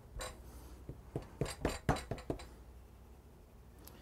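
Hands pressing and patting a small round of pastry dough flat on a wooden board, giving a series of light taps and knocks in the first two and a half seconds, then quieter.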